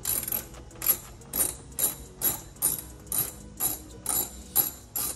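Hand socket ratchet worked back and forth in short strokes, its pawl rasping about twice a second as it backs out a fender-liner screw.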